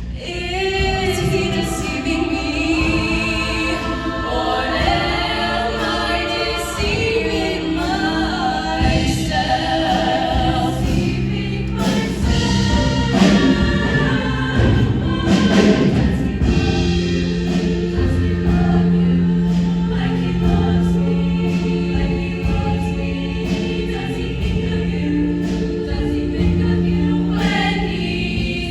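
Show choir singing in full chorus with accompaniment, the voices moving over long held low notes.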